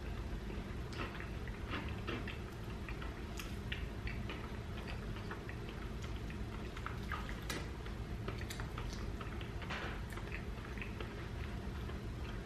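Eating sounds: scattered small clicks and taps of a plastic fork against a plate while food is picked apart by hand, with soft chewing, over a steady low hum.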